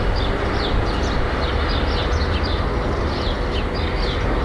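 City street ambience: a steady low rumble of traffic with small birds chirping over it again and again.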